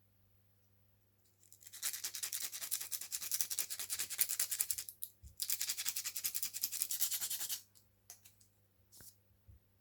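Rapid back-and-forth scrubbing or rubbing in two bouts of about three seconds each, followed by a few small clicks.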